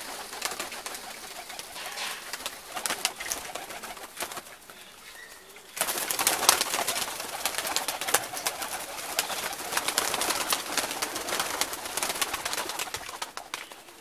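Domestic pigeons in a loft: wings flapping and clattering as birds take off and land on a perch, with cooing. The flapping turns suddenly louder about halfway through.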